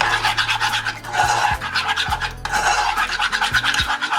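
Utensil stirring and scraping against the dish in quick, continuous strokes, mixing honey, sugar and dry powdered seasonings into a thick sauce paste before any water goes in. The strokes break off briefly about two and a half seconds in.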